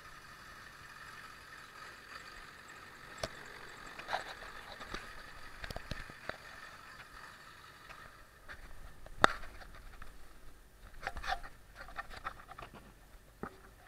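1999 Ford F-350's 7.3 L Power Stroke diesel engine running steadily, then going quiet about eight seconds in. Scattered knocks and scrapes come through it, with one sharp knock about nine seconds in and a cluster around eleven seconds.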